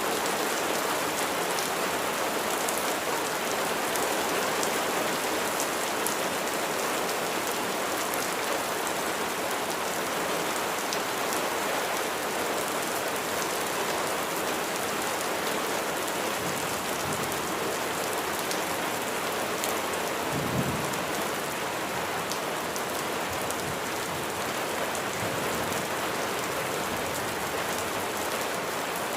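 Steady heavy rain falling on a surface, with fine drop ticks. A brief low rumble of thunder comes about two-thirds of the way in.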